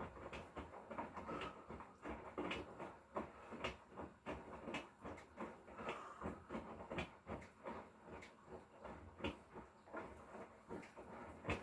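Hotpoint Core 8 kg washing machine with an inverter motor, running a wash: the drum turns and the load tumbles, giving faint, irregular clicks and knocks over a low rumble.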